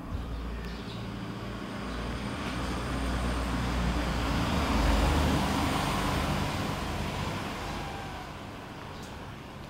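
A motor vehicle passing by: a low rumble and rushing noise that swell slowly to their loudest about halfway, then fade away.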